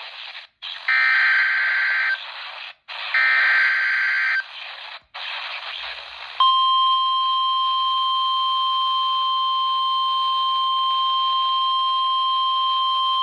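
NOAA Weather Radio alert played through a RadioShack 12-254 weather radio's speaker. Two bursts of the raspy SAME digital header come first, with radio hiss between them. About six seconds in, the steady 1050 Hz warning alarm tone starts and holds, signalling that a warning follows.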